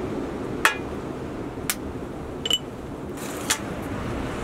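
A small metal spoon clinking four times against ceramic spice pots and a metal tray, two of the clinks with a brief bright ring, over a steady low background noise.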